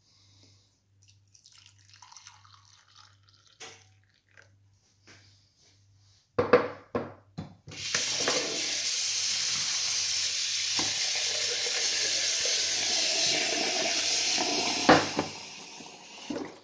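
A few knocks of kitchenware, then a kitchen tap runs steadily into a small stainless saucepan in a stainless-steel sink as the pan is rinsed. The water starts about halfway through and stops shortly before the end.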